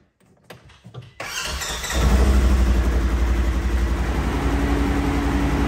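Polaris Ranger XP 1000's twin-cylinder engine started with the key: a few faint clicks, a short crank about a second in, then it catches about two seconds in and settles into a steady idle. A steady hum joins about four seconds in.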